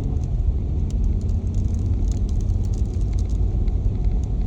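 Jeep in four-wheel drive driving slowly up an icy hill, heard from inside the cabin as a steady low rumble, with scattered faint crackles throughout.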